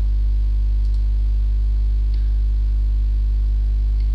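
Steady electrical mains hum on the recording, a low drone with evenly spaced buzzy overtones that holds unchanged throughout.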